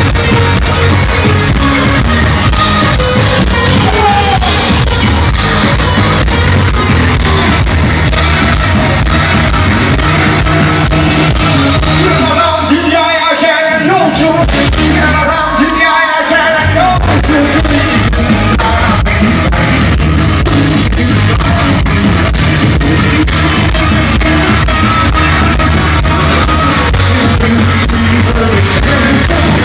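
Live rock band playing loud through a concert PA, with singing and the crowd shouting. About twelve seconds in the bass and drums drop out for a few seconds, leaving wavering singing, before the full band comes back.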